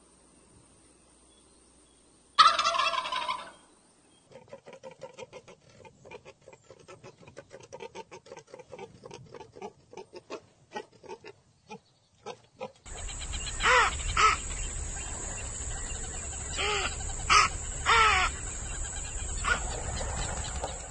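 Domestic fowl calling in several short takes. A loud warbling call comes about two and a half seconds in. A long run of rapid clucking follows. Near the end, several short, louder calls sound over a steady background noise.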